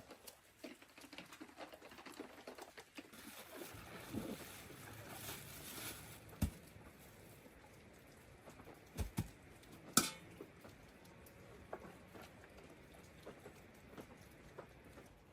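Scattered light knocks and clicks over a faint steady hiss, the loudest three coming about six, nine and ten seconds in.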